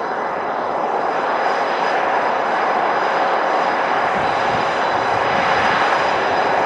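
EA-18G Growler's twin GE F414 turbofans running as the jet taxis: a steady rush of jet noise with a high whine on top, slowly growing louder.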